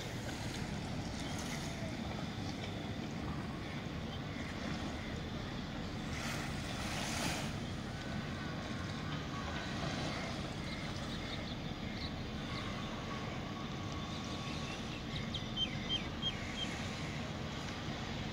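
Steady outdoor beach ambience: a low, even wash of sea and wind, swelling briefly about six seconds in, with a few faint short high sounds near the end.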